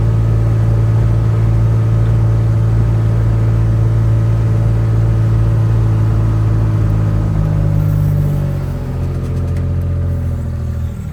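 An engine running steadily, a low even hum that eases off about eight seconds in.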